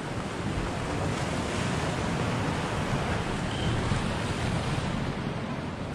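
Sea waves washing steadily against the rocky shore of the Giant's Causeway, with wind buffeting the microphone.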